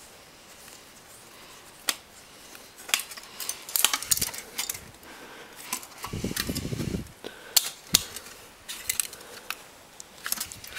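Small metal parts of a 3.5-inch floppy disk drive being worked with a screwdriver and handled: scattered sharp clicks and light metallic rattles.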